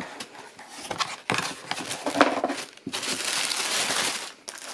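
Paper packaging crinkling and rustling as a shoebox is opened and the trainers are unwrapped: short bursts with a few sharp clicks, then a longer steady rustle about three seconds in.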